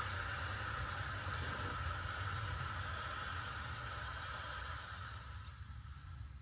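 Water hissing as it runs from a hose through a Dare stock-tank float valve into a galvanized tank, then fading away near the end as the valve pressurizes and shuts itself off.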